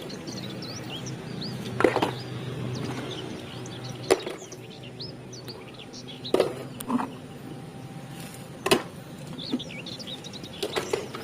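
Toy vehicles being dropped into a basket, making a handful of sharp knocks about every two seconds. Small birds chirp steadily in the background.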